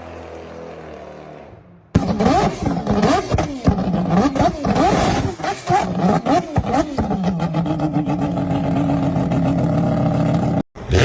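V8 car engines: a steady engine note fading away, then about two seconds in a hard cut to an engine being revved up and down again and again, which settles into a steady high-revving run and breaks off near the end.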